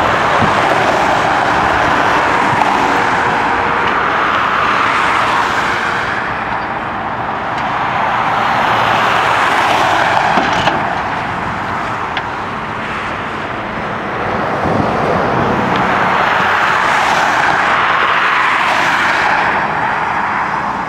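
Highway traffic passing close by: tyre and engine noise from cars and vans, swelling and fading as each vehicle goes past, about three swells in all.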